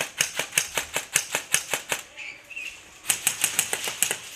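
Airsoft gun firing rapid shots, about six sharp cracks a second, in two strings with a break of about a second between them.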